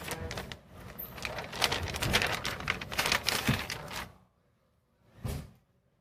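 Packaging crinkling and rustling as a replacement laptop battery is unwrapped: a dense run of small irregular crackles that stops about four seconds in, then one short rustle about a second later.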